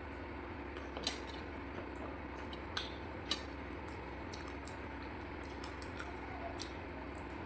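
Close-miked eating sounds: a handful of short, sharp clicks and smacks from mouth and food or dish, over a steady low hum.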